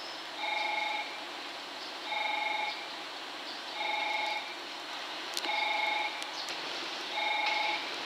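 Station platform train-approach warning beeper sounding five short electronic beeps, evenly spaced about every second and a half. Each beep is a steady chord of a few tones, and it signals that a train is approaching the platform.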